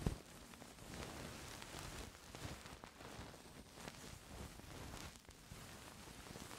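Faint, uneven rustling and scratching of fingers softly rubbing at a microphone for ASMR ear-touching, with a sharp knock at the very start and small clicks scattered through.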